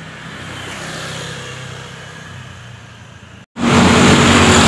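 Motor traffic on a town road: a vehicle engine passing at moderate level, swelling about a second in. Near the end, after an abrupt cut, a louder, closer engine running.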